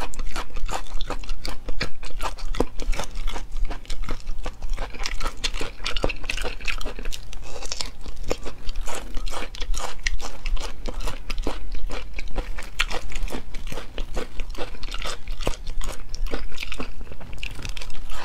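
Close-miked chewing of tough, chewy cowhide strips from a spicy cowhide and vegetable-root hodgepodge. It is a dense, irregular run of crunching, clicking chews, several a second.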